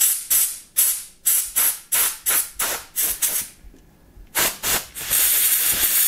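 Compressed-air duster can hissing in short puffs across a phone's USB-C charging port, about three a second, blowing out fluff and dust. After a brief pause there are two more puffs, then a longer steady blast near the end.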